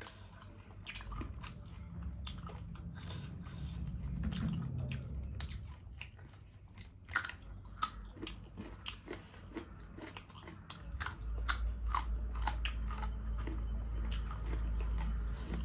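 Chewing and biting sounds of people eating, with many small crunches and clicks. A low steady hum joins about eleven seconds in.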